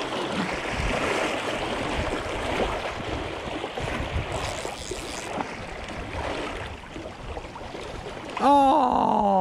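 River current rushing steadily, with a hooked fish splashing at the surface. Near the end a person lets out a long, loud drawn-out call that falls in pitch.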